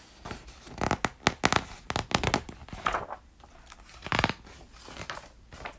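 Pages of a picture book being flipped and handled close to the microphone: an irregular run of crinkling, rustling paper sounds from about a second in until just past four seconds.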